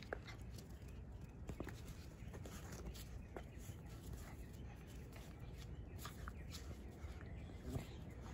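Two five-week-old Australian Shepherd puppies play-wrestling on wet concrete. A few faint, short squeaks are heard over a steady low background rumble.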